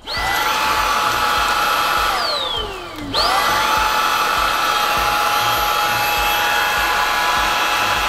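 Eufy HomeVac S11 Reach cordless stick vacuum running with its motorized brush head attached. The motor whines up to a steady high pitch, winds down about two seconds in, then is switched on again about three seconds in and runs steadily.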